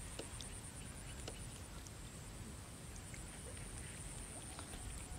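Faint, scattered light clinks and scrapes of a metal spoon in a cooking pot as curry is ladled out, over a steady low rumble and a steady high-pitched hiss.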